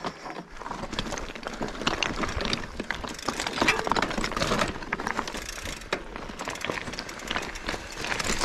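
Bicycle rolling down a rough track: tyres crunching over the ground and the bike rattling with many small clicks.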